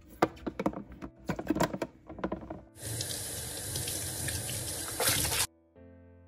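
A run of clattering knocks, then a kitchen tap running into a sink for about three seconds that cuts off abruptly.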